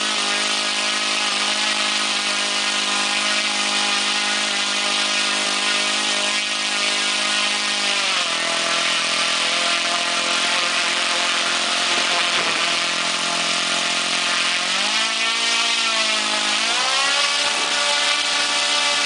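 Saito FG-20 gasoline model-aircraft engine running on a test stand and swinging a 16x6 propeller. It holds a steady speed, is throttled back about eight seconds in, then is brought back up near the end with a brief dip before settling at a higher pitch. This is its first run after a factory repair for rough running at mid range, with the throttle being worked through the mid range.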